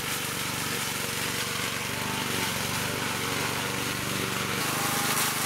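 Petrol walk-behind lawn mower running steadily under load as it cuts through tall, thick grass.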